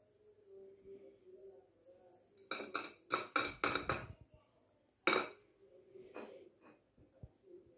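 Small metal objects dropped into a stainless steel bowl, clinking: a quick run of clinks about two and a half seconds in, and one sharp clink about five seconds in.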